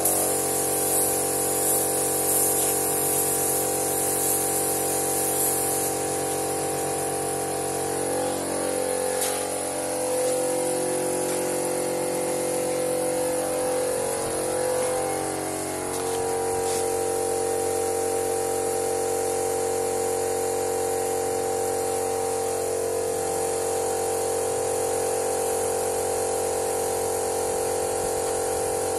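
Paint spray gun hissing as it sprays, stopping about six seconds in. A steady motor hum of several tones runs underneath and carries on after the spraying stops, wavering in pitch for a few seconds near the middle.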